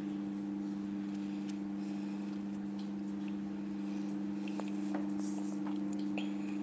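Microwave oven running with a steady low hum, with a few faint clicks scattered through it.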